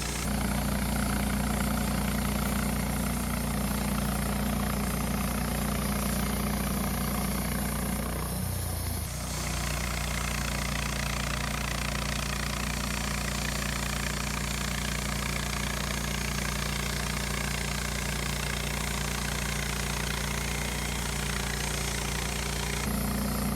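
Wood-Mizer LT15 portable band sawmill running: a steady engine drone at one even pitch, with a brief dip and change in the sound about nine seconds in.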